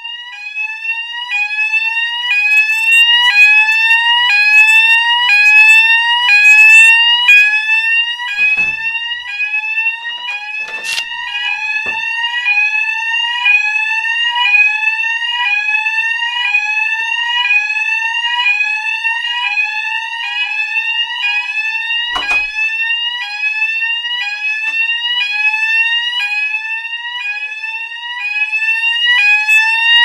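Building fire alarm sounder going off continuously: a shrill tone that sweeps upward, repeated just over once a second, growing louder and softer as the phone moves.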